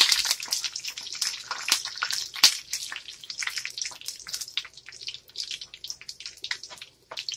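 Fried onions and whole dried red chillies sizzling and crackling in hot oil for a tempering (baghar). The sizzle is dense for the first couple of seconds, then thins to scattered pops.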